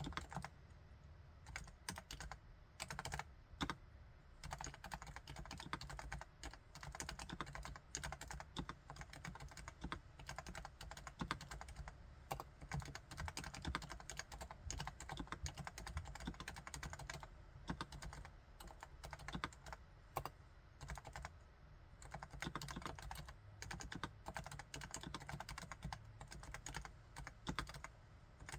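Continuous fast typing on a Topre Realforce R4 keyboard, its electrostatic capacitive (Topre) keys clicking in a dense, unbroken stream of keystrokes.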